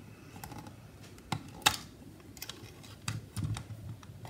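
A handful of irregular light clicks and taps from fingers and a small screwdriver working inside an open MacBook Air around its cooling fan, the sharpest a little under two seconds in.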